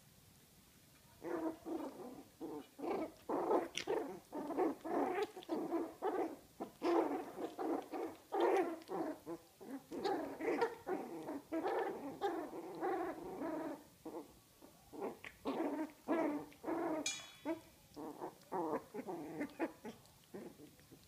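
Two puppies play-fighting, growling and grunting in rapid short bursts, with a short lull about two thirds through and one brief high yelp near the end.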